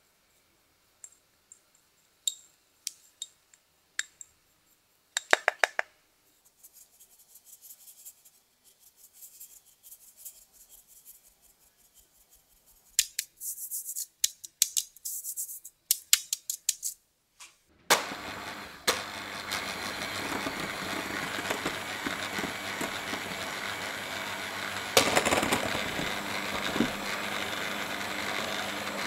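A small handheld mesh sieve tapped and rattled against a glass bowl as cocoa powder and starch are sifted in, making scattered light taps and short rattling runs. Then, about two-thirds of the way through, an electric hand mixer starts and runs steadily, whisking egg whites into a chocolate meringue, and gets a little louder near the end.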